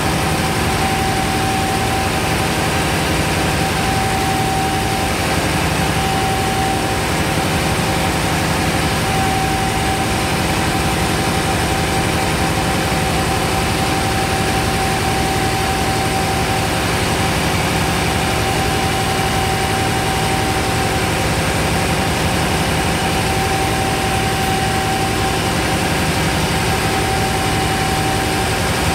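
Three-stage reciprocating gas compressor package running steadily under load, a loud even machine drone with a steady high whine over it.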